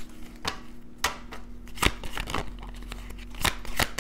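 Tarot cards being shuffled and handled by hand: about six separate sharp card clicks and slaps, spaced irregularly.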